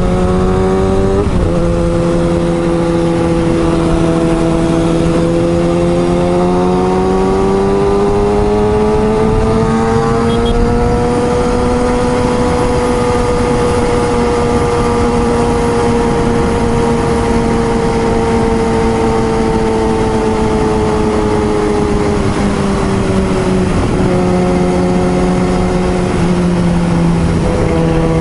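Kawasaki ZX-6R inline-four engine running hard under way, its pitch climbing slowly, holding, then easing back down, with sudden drops in pitch shortly after the start and again near the end.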